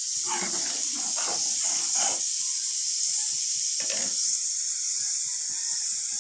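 Watery curry gravy hissing steadily on the heat in a steel kadai. A steel ladle stirs it in a few short strokes over the first two seconds and once more about four seconds in.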